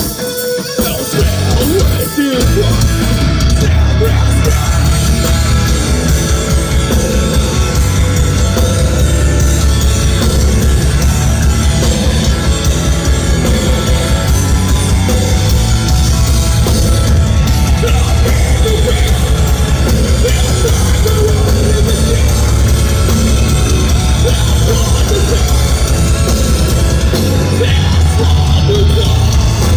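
Metalcore band playing live: distorted electric guitars over heavy bass and drums. The low end drops out briefly at the start and the full band comes back in about two seconds in.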